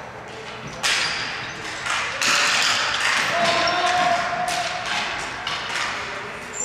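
Ball hockey play: several sharp knocks of sticks and the ball striking, with a short ring after each, and a brief held tone about halfway through.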